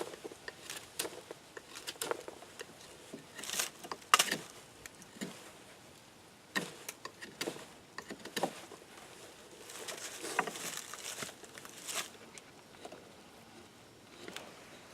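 Knife blade shaving and carving wood in irregular short strokes, with scrapes and small clicks; a longer shaving stroke comes just past the middle.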